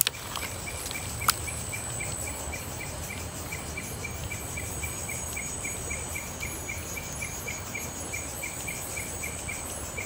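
Night insects calling: a steady high-pitched drone, with a short chirp repeating about four times a second. One sharp click comes about a second in.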